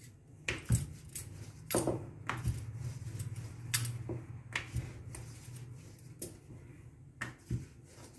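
Wooden rolling pin rolling out a round of dough on a stone countertop, with scattered light knocks and clicks as the pin and dough are set down and turned, over a low steady hum.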